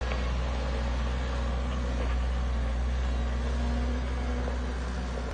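Caterpillar 907H compact wheel loader's diesel engine running steadily with a low drone as the loader drives and turns.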